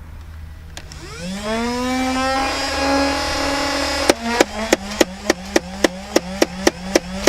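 Nerf Rival MXVI-4000's flywheel motors spinning up with a rising whine about a second in, then the blaster firing on full auto about four seconds in: a regular train of sharp shots, roughly three a second, with the motor's whine dropping in pitch as the flywheels take the load.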